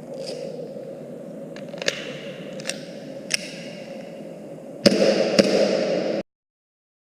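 Airsoft pistol shooting: about six sharp snaps over a steady low hum, the last two louder. The sound cuts off abruptly near the end.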